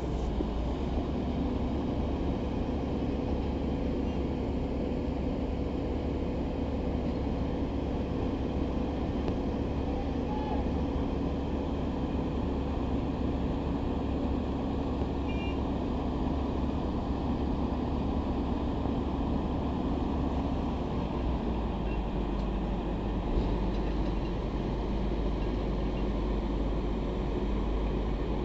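Steady low drone of running heavy machinery, with a few steady tones in it; the low pitch shifts about two-thirds of the way through.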